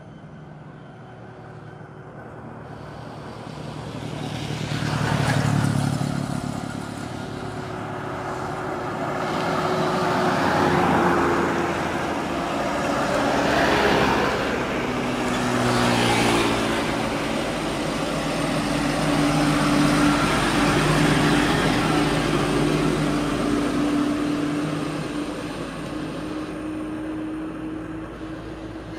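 Loaded Isuzu truck's diesel engine working hard as it climbs and passes close by, mixed with motorcycles and cars going past. The sound swells and fades several times as vehicles pass, with a short change in engine pitch near the middle.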